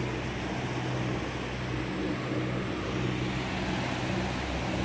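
Motor yacht's engines running steadily underway, a low even hum over a steady rushing noise of wind and water.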